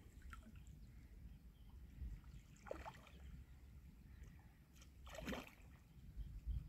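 A hooked carp splashing in shallow water at the surface as it is drawn in to the bank: two brief splashes, one a little under 3 s in and a louder one about 5 s in, over a low steady rumble.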